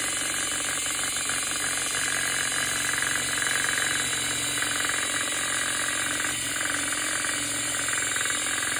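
Cordless drill motor running steadily, spinning a wooden spoon chucked in it to beat egg whites in a glass bowl.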